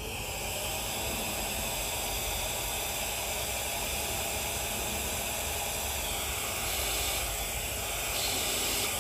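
MECO ME-CR1 battery-powered handheld vacuum running, a steady rush of air through its tape-narrowed nozzle as it sucks small hive beetles off a hive's screened inner cover. It grows slightly louder twice near the end.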